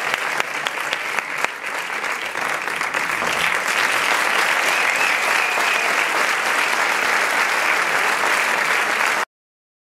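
Audience applauding, the clapping swelling about three and a half seconds in as the performer bows. It cuts off suddenly near the end.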